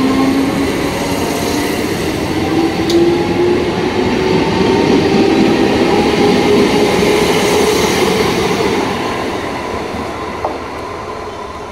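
ICF Medha three-phase EMU local train pulling away, its traction motors giving a whine that rises in pitch over the rumble of the wheels on the rails. The sound fades over the last couple of seconds.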